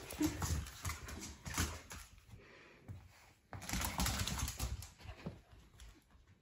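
Claws of a basenji and a boxer puppy clicking and scrabbling on a tile floor as the two dogs play, in irregular flurries. It eases off about two seconds in, then a sudden louder flurry starts about a second and a half later.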